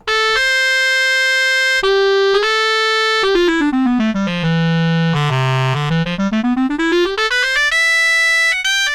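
Sampled clarinet SoundFont preset played one note at a time on a keyboard: a few held notes, then a quick run down the scale to a low note and straight back up, ending on held notes.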